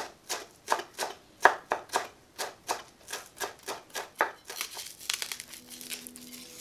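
Chef's knife chopping fresh dill and green onion on a wooden cutting board: a steady run of sharp taps, about three a second. The chopping stops about four seconds in, and a dry papery crackle follows as the skin of a yellow onion is peeled off with the knife.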